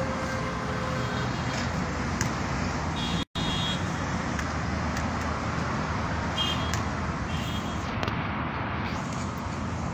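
Steady outdoor background noise with the even, hissing character of distant traffic, with a few faint short high squeaks and light taps. The sound cuts out completely for an instant about three seconds in.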